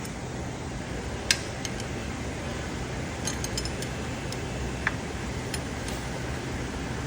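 A few sharp metallic clinks of metal parts or tools being handled, one loudest about a second in and a quick cluster around the middle, over a steady low hum.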